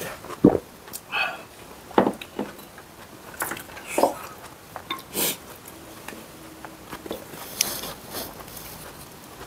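Close-miked eating sounds from people eating at a table: irregular chewing and swallowing, with a few short knocks and clicks of chopsticks against dishes.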